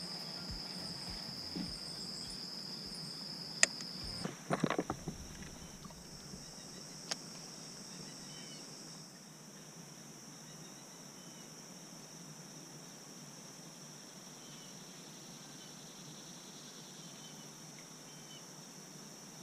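Steady high-pitched chorus of insects. A few sharp clicks and knocks sound about four to five seconds in, with one more click a couple of seconds later.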